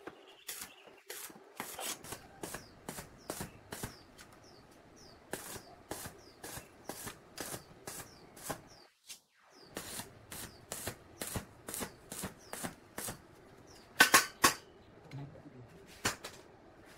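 Light metallic clicks and taps, about two a second, from galvanized square steel tubes being nudged into line on a steel workbench. Near the end there is a louder, quick clatter of tubes knocking together.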